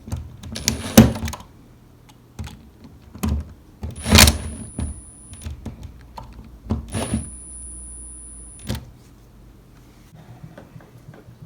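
A series of sharp clicks and knocks, loudest about a second in, with a faint high-pitched whine that comes and goes three times, the longest stretch about two seconds between a pair of clicks.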